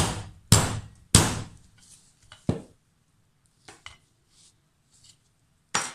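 Claw hammer striking a metal fork laid on a wooden block, flattening its tines. There are three sharp blows in the first second or so and a lighter one about two and a half seconds in, then a few faint knocks and one more sharp knock near the end.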